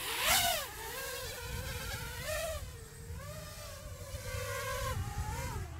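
FPV racing quadcopter flying, its motors and propellers whining in a pitch that swoops up and down as the throttle changes.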